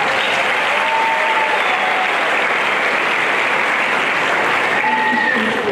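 Audience applauding steadily, with a few brief voices calling out over the clapping.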